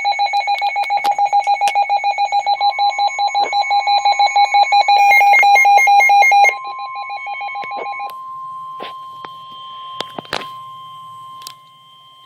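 Weather alert radio sounding its alarm for a NOAA Weather Radio warning: a loud, rapid electronic pulsing beep that stops abruptly about six and a half seconds in, then fades out by about eight seconds. Under it, from about two and a half seconds in, runs the steady 1050 Hz NOAA warning alarm tone, with a few sharp clicks near the end.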